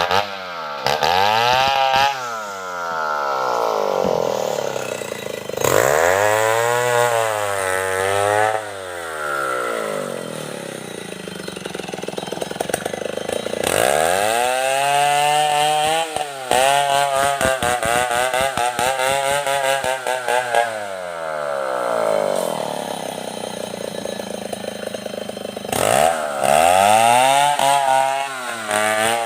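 Stihl 070 two-stroke chainsaw run hard in repeated bursts, its engine pitch rising steeply under throttle and falling back several times, with lower steady running between the bursts.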